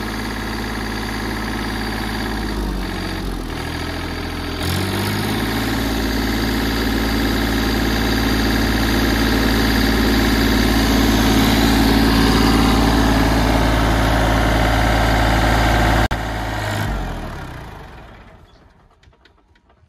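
Mahindra Oja 2127 tractor's 27 HP diesel engine running at a set 1800 RPM with its 20-blade rotavator. About five seconds in, its pitch steps up and it runs harder. Around sixteen seconds in, it cuts out suddenly and winds down to a stop: the engine has shut off unexpectedly.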